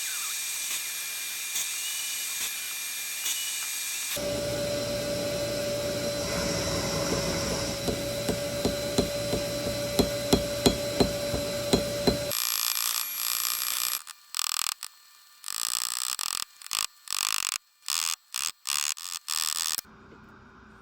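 A small power tool working on metal: a steady running tone with clicks for several seconds, then switched on and off in a string of short bursts.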